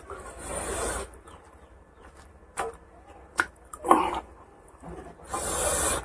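Close-miked eating by hand, pork curry and rice: squelching and rubbing as the fingers work the food, then a few sharp clicks and smacks of the mouth as a handful is eaten, with bursts of breathy, hissing noise at the start and near the end.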